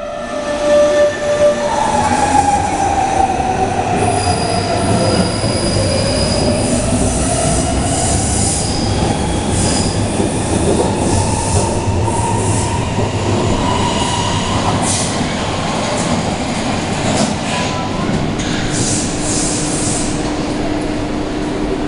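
Hamburg S-Bahn class 474 electric train running along the underground platform and away. Its electric drive whines, one tone falling over the first seconds while another rises steadily as the train picks up speed, over wheel noise and squeal on the rails. Near the end a steady low hum sets in.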